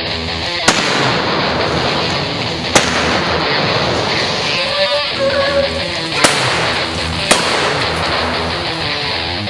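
Guitar-driven rock music with a steady, dense bed, broken by four sharp cracks spread through it.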